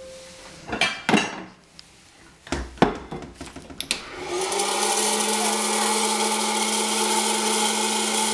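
A few knocks and clatter of handling, then about four seconds in a hot-air popcorn popper is switched on and runs with a steady fan whir and a constant hum.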